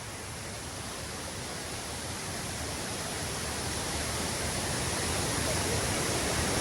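Large waterfall rushing, a steady roar of falling water that grows gradually louder.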